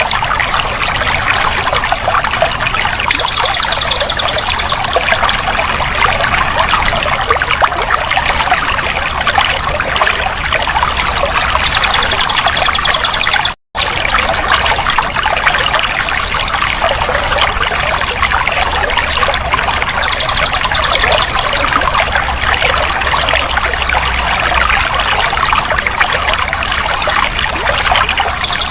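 Flowing water trickling and splashing steadily, used as a sound-therapy track for a caged songbird. A short high trill comes in about every eight seconds, four times in all. The sound cuts out completely for an instant about halfway.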